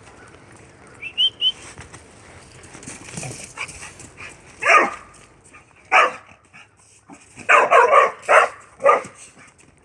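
A dog barking: single barks about five and six seconds in, then a quick run of barks near the end.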